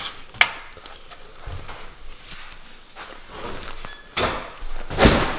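A door being unlatched and opened, with a sharp latch click about half a second in and a couple of louder thuds near the end.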